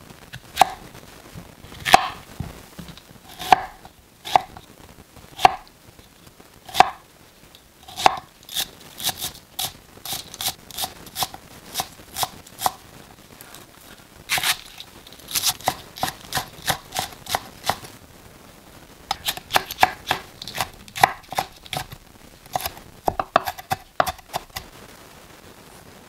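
Chef's knife chopping on an end-grain wooden cutting board. It starts with single, spaced cuts through a zucchini, then from about a third of the way in comes quicker runs of chopping, several strikes a second with short pauses, as chives, green onion and chili peppers are finely diced.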